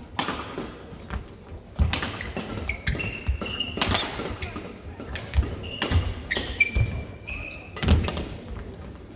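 Badminton rally: sharp cracks of rackets striking the shuttlecock every second or two, with thuds of footwork and short high squeaks of shoes on the court floor.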